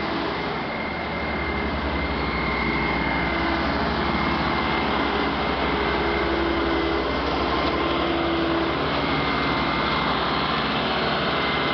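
Mobile concrete pump running steadily under load, its engine giving a fast low pulse with a constant high whine over it.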